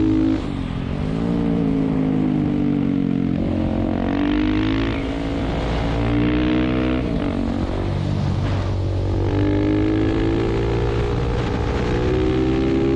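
2020 KTM 690 SMC supermoto's single-cylinder engine under way, its note climbing under throttle and dropping back several times as it accelerates, shifts and eases off.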